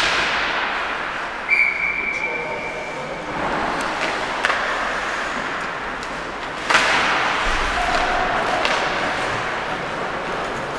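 Ice hockey game sounds in a rink: sharp knocks of puck and sticks, the loudest about two-thirds of the way in, and a short steady whistle blast near the start, over a constant rink hiss.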